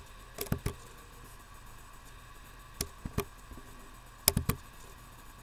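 Sharp clicks of computer buttons being pressed, in three quick groups: three near the start, two about three seconds in, and three more near the end.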